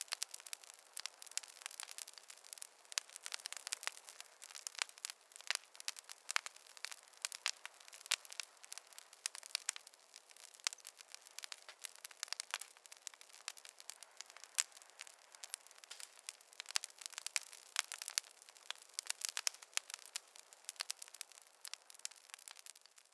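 Campfire crackling: a steady, dense run of small sharp pops and snaps, thin and bright with no low rumble underneath.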